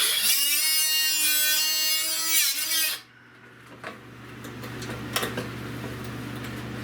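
A power cutting tool slicing through sheet steel, a steady high whine over a harsh hiss, which stops suddenly about three seconds in. A low hum and a few light clicks follow.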